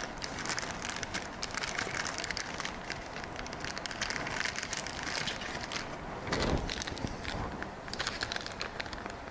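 Small clear plastic bag crinkling and crackling as it is handled and opened by hand, with a dull low bump about two-thirds of the way through.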